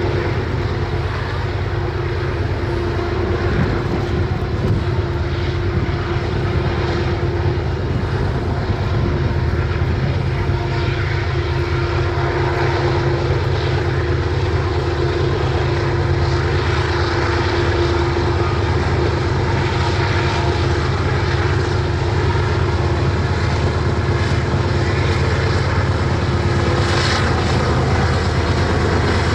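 BNSF diesel freight locomotives running steadily, a loud, even low drone with one held tone over it.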